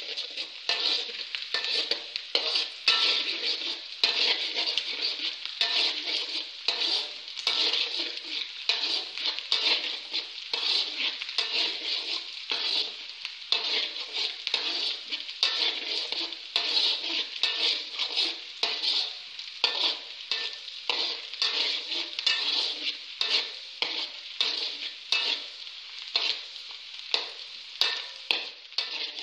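Sliced shallots sizzling in hot oil while a spatula stirs and scrapes them in the pan with repeated strokes, frying them until they turn golden brown.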